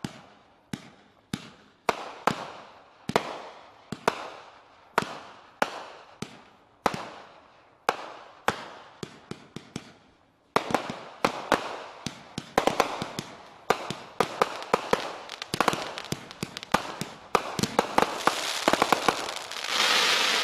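A 61-shot, 30 mm bore firework cake firing: sharp bangs of bursting shells about once or twice a second. After a short lull about ten seconds in, the shots come faster with crackling breaks, building to a dense crackling finale near the end.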